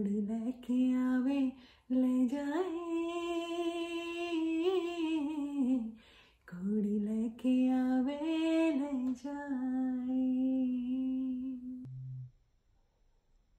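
A woman singing unaccompanied, holding long notes with vibrato in two sung phrases; the singing ends about twelve seconds in.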